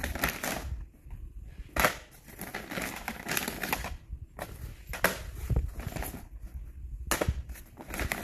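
Plastic DVD and Blu-ray cases clacking against each other and the plastic shopping bag crinkling as the cases are lifted out and shuffled, in a quick, irregular run of clicks and rustles.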